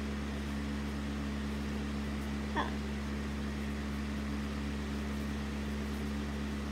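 A steady low hum with a few fixed tones, unchanging throughout, with one brief faint sound about two and a half seconds in.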